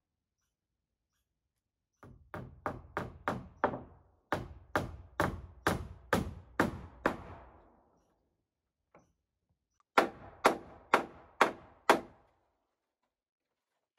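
Hammer driving hand-forged rosebud nails into roof sheeting: two close runs of about fifteen sharp blows in all, a pause, then five evenly spaced blows about half a second apart.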